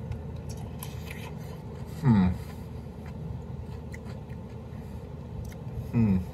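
A man biting and chewing a crunchy fermented kosher dill pickle: small crisp crunches and clicks of the bite and chew. Twice a short hum from him falls in pitch, about two seconds in and again near the end, louder than the chewing.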